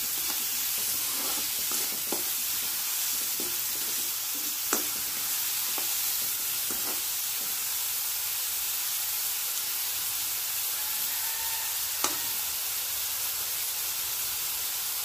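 Chopped onions, green chillies and dried prawns sizzling in oil in a kadai, stirred with a spatula that scrapes through the mix and gives a few sharp taps on the pan.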